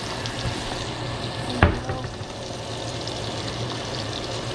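Salmon fillets sizzling steadily as they fry in butter in a nonstick pan, with one sharp knock about one and a half seconds in.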